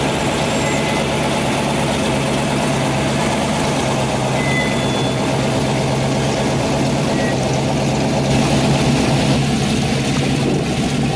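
Supercharged engine of a 1948 Ford Anglia pro street hot rod running at a steady idle while the car creeps forward, swelling a little about eight seconds in.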